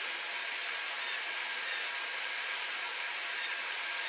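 Kitchen faucet running steadily, water pouring over canned corn in a colander in the sink.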